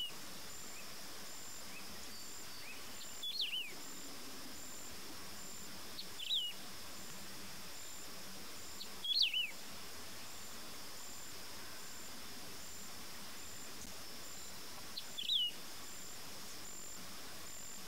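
Wedge-tailed grass-finch singing: short phrases of a few quick notes that slide down in pitch, repeated every three to six seconds. A steady high buzz with a regular high chirp runs behind it.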